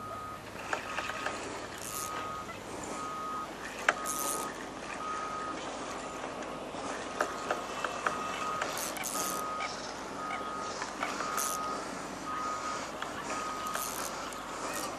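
A vehicle's reversing alarm beeps steadily, one even tone repeating a little faster than once a second. Over it come scattered short clicks from a spinning reel being worked while a hooked fish is played.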